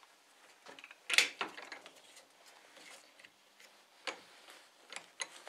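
Scattered light metallic clicks and knocks of a bearing, idler pulley and metal vise jaw covers being handled and set between the jaws of a bench vise, ready to press the new ball bearing into the pulley. The loudest knock comes about a second in, with a few more near the end.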